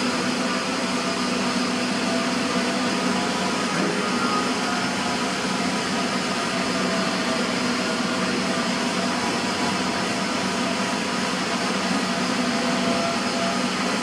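Steady hiss and hum of TIG welding on a stainless steel tank, the arc and welding equipment running without a break over a constant low drone.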